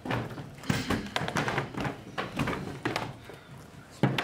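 Clatter of laptops and tablets being handled and opened on classroom desks: a quick run of taps and knocks, with one louder thump near the end.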